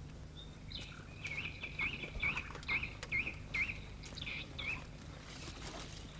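A bird calling: a run of short, looping chirps, about two a second, for a few seconds, over a low steady hum.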